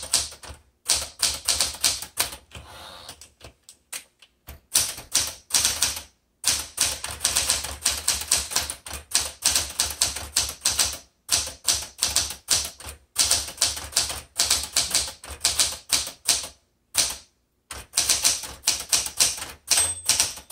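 Smith Corona Galaxie 12 manual typewriter being typed on: a fast, steady run of typebar strikes against the platen, broken by a few short pauses.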